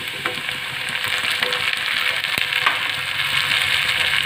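Hot oil sizzling as chopped tomatoes are added to fried onions in a pan, the sizzle growing louder, with a few light clicks of a spoon against the bowl and pan.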